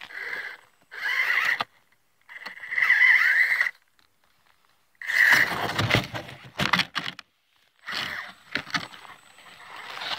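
Barrage Gen2 RC rock crawler driven through snow in short bursts of throttle: its electric motor whines and the tyres scrape and crunch the snow. The sound stops and starts about five times.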